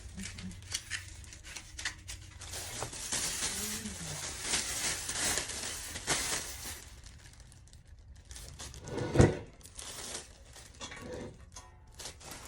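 Packaging being handled: crinkling and rustling with scattered light clicks and knocks, and one sharp louder knock about nine seconds in.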